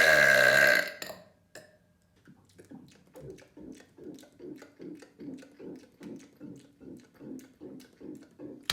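A long, loud, deep man's burp that ends about a second in. Then comes a run of quiet, rhythmic throat sounds, about two a second, until a click near the end.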